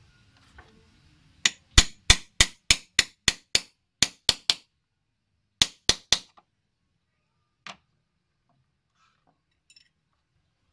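Small hammer tapping on a wooden toy ox cart: a run of about eleven quick, sharp strikes at roughly three a second, then three more after a short pause, and one faint tap later.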